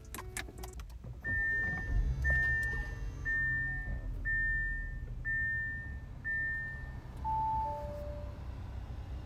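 Car warning chime beeping six times, about once a second, on a high note, then two lower notes stepping down, over the low rumble of the 2022 Audi A8 L's engine running.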